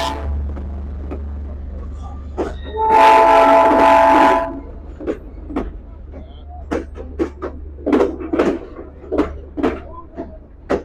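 Diesel locomotive's multi-tone air horn sounds one blast of about a second and a half, a chord of several tones, about three seconds in, over a low engine rumble. From about five seconds in, a series of short, irregular clicks and knocks follows as the train's coaches move past.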